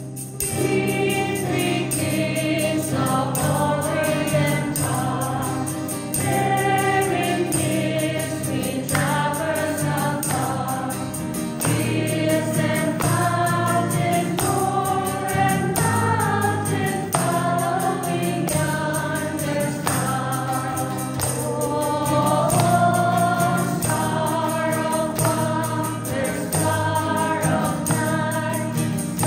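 Church choir singing a hymn, the voices moving note by note over steady low accompanying notes.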